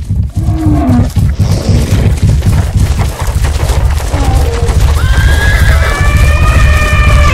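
Animal stampede sound effect: a heavy, loud rumble of pounding hooves and feet with animal calls over it, and one long, high call from about five seconds in.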